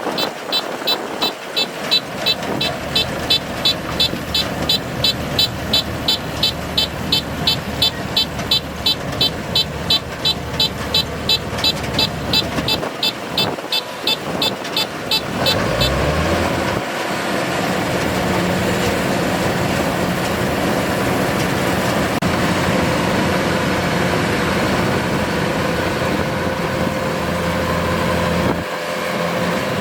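Kubota DC-105X combine harvester running, with a high electronic beeper sounding about three times a second. About halfway through, the beeping stops and the engine revs up to a steady, louder working speed, then eases off near the end.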